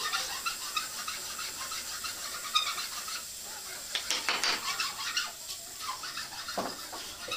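Wooden table-frame parts, turned legs and a rail, knocking and clattering lightly as they are handled and fitted together, with one sharp knock about two and a half seconds in.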